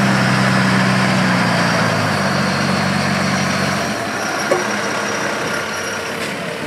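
Competition trial truck's diesel engine running at a steady low speed; the engine tone drops away about four seconds in, leaving a steady rushing noise, with one short click soon after.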